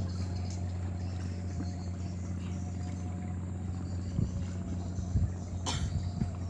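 A motor runs steadily with an even low hum, most likely a boat engine. A few light knocks come in the second half, and there is one sharper click near the end.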